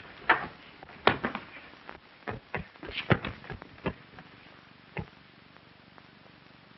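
Fistfight on an old film soundtrack: a quick, irregular run of sharp blows and scuffling thuds for about five seconds, then only the soundtrack's hiss.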